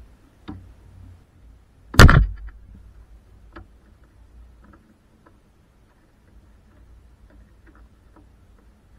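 Plastic cowl panel below the windscreen being pressed back into place: one loud plastic snap about two seconds in as a clip seats, with a smaller click before it and faint clicks and ticks of the plastic trim afterwards.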